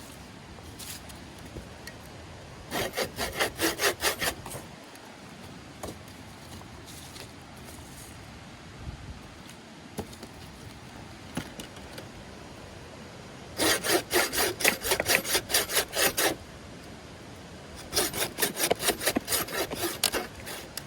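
Hand saw cutting through wood in three bouts of quick back-and-forth strokes, about four strokes a second, the longest bout a little under three seconds, with a few light knocks between them.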